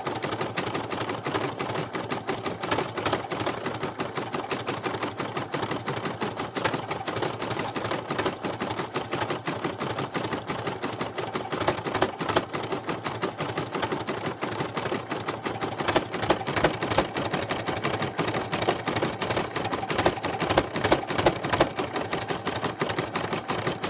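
Brother SE1800 embroidery machine stitching at speed around an appliqué letter: a fast, even clatter of the needle, a little louder over the last several seconds.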